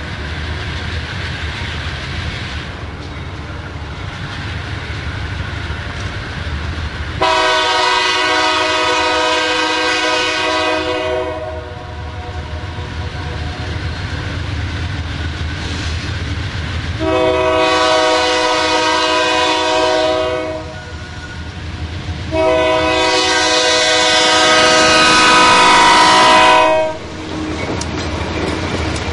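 Approaching freight train's diesel locomotives sounding a multi-note air horn in three long blasts for a road grade crossing, the last one the longest and loudest, over a steady low diesel engine rumble. Near the end the lead locomotives pass close by with engine rumble and wheel noise.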